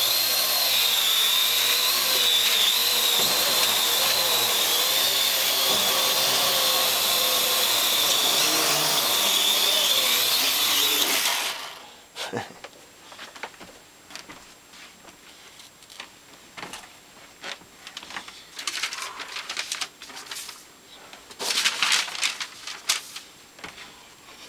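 AR Drone quadcopter's rotors running with a steady high whine that cuts off suddenly about halfway through. Afterwards only scattered light knocks and rustles.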